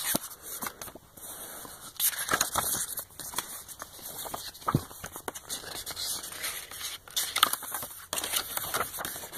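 Paper and packaging handling as a book from a DVD box set is opened: irregular rustling broken by sharp clicks and crinkles.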